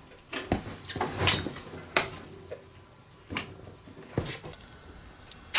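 Scattered sharp metal clanks and knocks, about six over several seconds, from the buggy being worked off its jack stands. A faint high steady whine comes in near the end.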